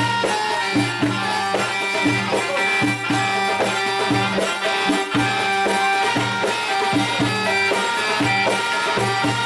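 Middle Eastern dance music: a steady, evenly spaced hand-drum beat under a sustained melody line.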